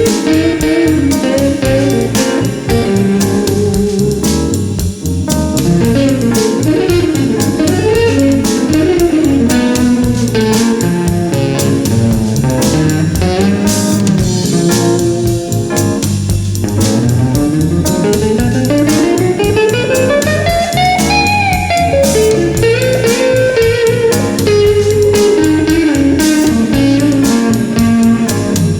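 Background blues-style music led by a guitar, with a long rising guitar slide about two-thirds of the way through.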